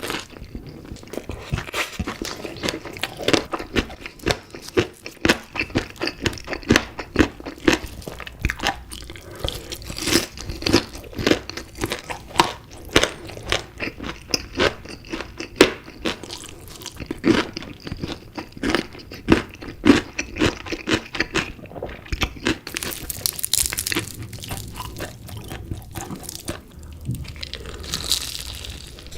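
Close-miked chewing and crunching of crunchy chicken pieces with sauce, dense irregular crunches throughout.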